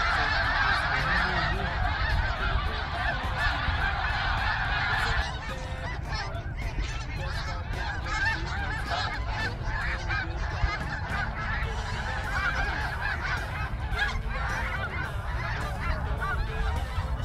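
A large flock of snow geese calling, a dense, continuous chorus of honking that becomes quieter about five seconds in.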